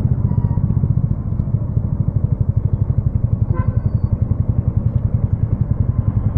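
Yamaha XSR155's single-cylinder engine running through a home-made exhaust at low revs, with a fast, even exhaust beat.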